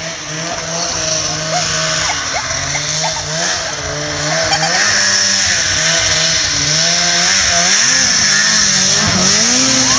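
Polaris RMK 800 snowmobile's two-stroke twin engine running with the throttle worked up and down, its pitch rising and falling. It gets louder in the second half as the sled comes close.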